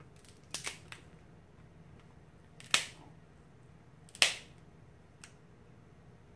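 Crab leg shells cracking as they are snapped apart by hand. There are a few small cracks early on, then two sharp, loud snaps about a second and a half apart, with a faint click after.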